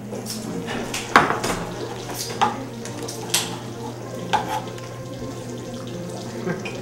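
Chicken breast frying in butter and olive oil in a skillet, with about five sharp clinks and knocks of utensils and dishes in the first four and a half seconds.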